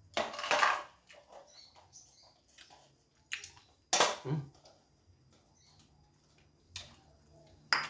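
A sealed metal tin piggy bank being handled and pried at by hand, trying to open it: a scraping rattle about half a second in, then scattered clicks and knocks, the sharpest about four seconds in.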